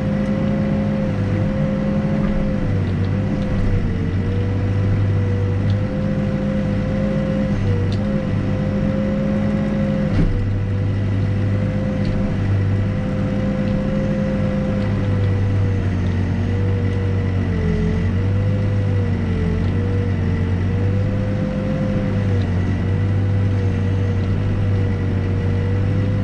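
New Holland B95 backhoe loader's diesel engine running steadily while digging. Its low drone swells and eases with the load, over a steady whine that wavers in pitch.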